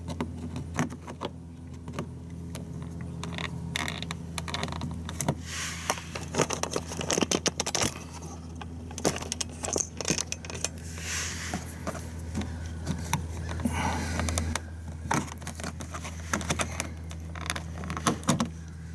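Screwdriver and pick clicking and scraping on a plastic push-pin clip as it is pried out of a car's plastic wheel-well liner: many small irregular metallic clicks and rattles over a steady low hum.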